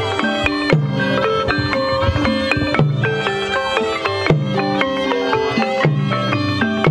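Khmer pinpeat ensemble playing: a reed-wind melody over struck melodic percussion and drums, with a low beat about every second and a half.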